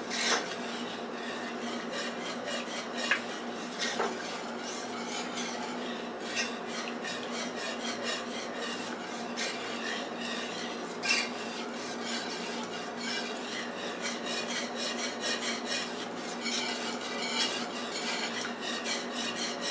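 Wire whisk stirring milk into a thick flour-and-cream roux in a skillet, the metal wires scraping and clicking against the pan in quick, repeated strokes, with a few sharper clicks.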